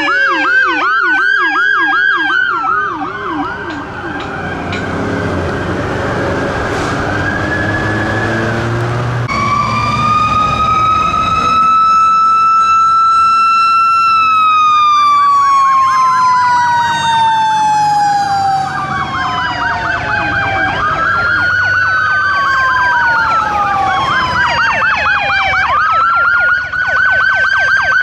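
Sirens of fire vehicles passing one after another. First comes a fast electronic yelp. Then a fire engine's rumble and a long siren wail that climbs and then falls slowly over several seconds. Near the end come repeated wails that rise quickly and drop off.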